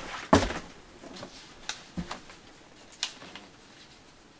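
A sharp knock a moment in, then a few light clicks and taps, as of things being moved and handled in a small room.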